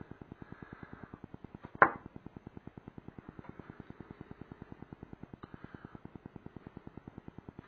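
A single sharp knock about two seconds in as a small glass lacquer bottle is set down on the wooden table, over a steady low pulsing of about ten beats a second.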